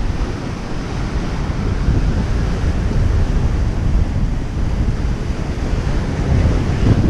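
Wind buffeting the microphone: a loud, gusting low rumble with a hiss above it.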